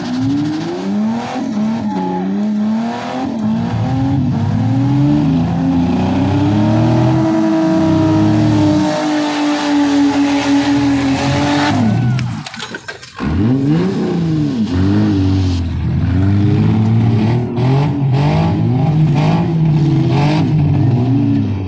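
Several compact cars' engines revving hard and changing pitch at the same time as the cars drive and ram one another in a demolition derby. There are occasional bangs, and the sound briefly drops out about twelve seconds in.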